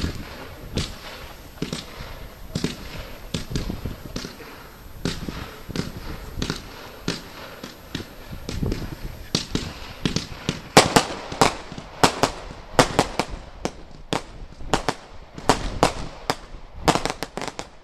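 Consumer firework batteries firing a steady series of shots, about one every half second. From about eleven seconds in the reports come louder and quicker, as sharp cracks.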